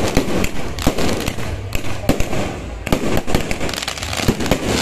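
Dense barrage of fireworks going off close overhead: rapid overlapping bangs and continuous crackling, with a few louder booms standing out.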